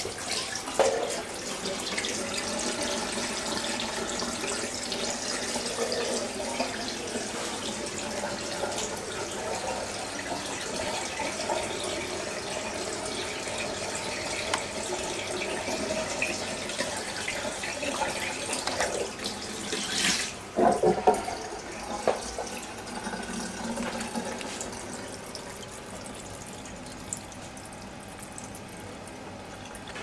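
Rinse water draining out of a 1961 Electrolux Dishmaid tabletop dishwasher through its opened drain valve and hose, splashing steadily into a stainless steel sink. A brief knocking comes about two-thirds of the way through.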